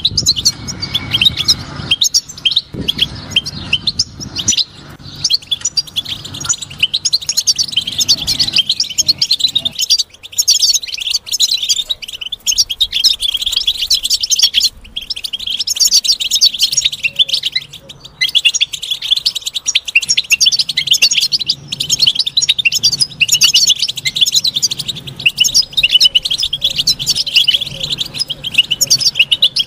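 European goldfinch song: a rapid, nearly continuous twittering of short high chirps and trills, with brief lulls.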